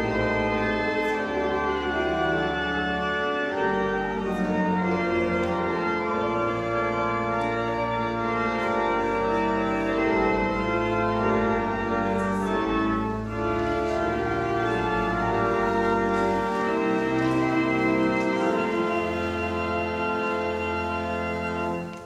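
Church organ playing a slow piece in held chords over long sustained bass pedal notes, breaking off abruptly at the end.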